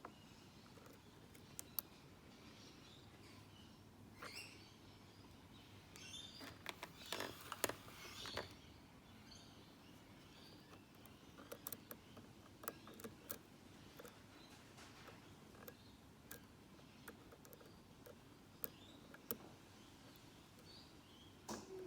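Faint, scattered small metal clicks and scrapes from a lock pick working the pins of a Mako padlock under tension, with a busier run of clicks about six to eight seconds in.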